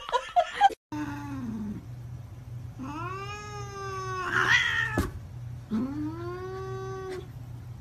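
Domestic cat yowling at another cat in drawn-out caterwauls: a short falling call, then two long wails that rise and hold. A sharp knock comes about five seconds in.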